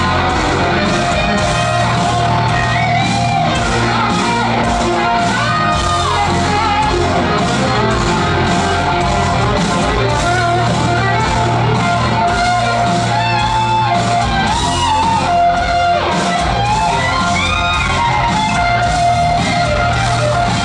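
Hard rock band playing live in a large hall: distorted electric guitars with bending lead lines over a steady drum beat.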